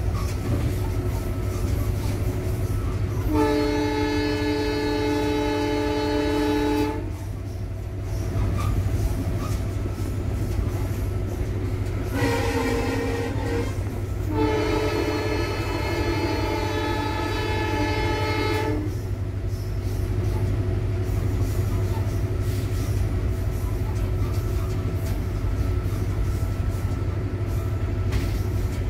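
EMD WDP4 diesel locomotive's horn sounding three times while running through a station: a long blast, a shorter one, then another long blast. Under it runs the steady low drone of the 16-cylinder 710 diesel engine and the rail noise in the cab.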